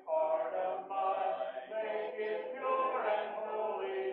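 A congregation of mixed voices singing a hymn a cappella, with no instruments, holding each note briefly before moving to the next.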